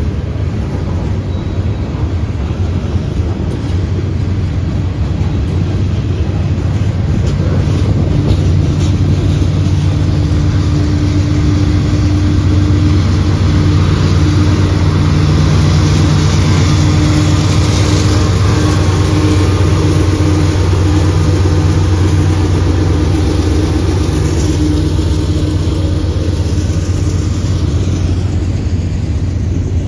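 Diesel locomotive engines running as a train approaches and passes, a steady low drone that grows louder over the first several seconds and eases near the end.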